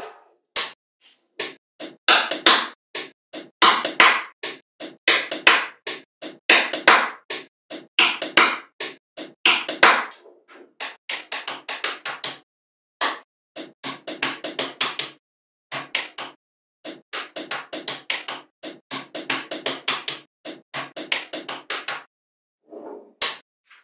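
Small magnetic balls clicking and clacking as they snap onto each other, in fast runs of sharp clicks with short pauses between them, stopping briefly near the end.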